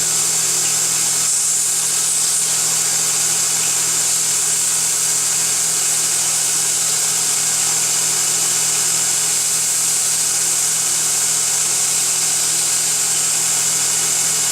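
A metalworking machine running steadily and loudly, a continuous hiss over a low hum. It starts abruptly, and near the end a falling tone appears as it winds down.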